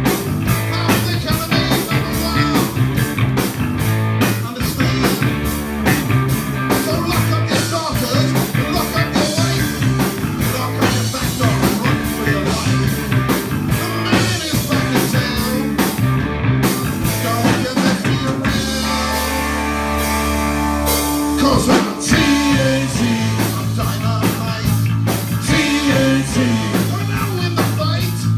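A live rock band playing a song on drum kit and electric guitars at full volume. About two-thirds of the way through, the drumbeat drops away for a few seconds under a held chord, then comes back in with a hit.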